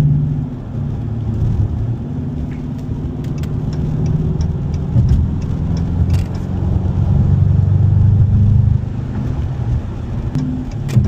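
Dodge Challenger R/T's 5.7-litre Hemi V8 running while the car is driven, with a K&N drop-in air filter fitted and the intake pulling in air audibly. The engine note swells about six seconds in and falls back just before nine seconds.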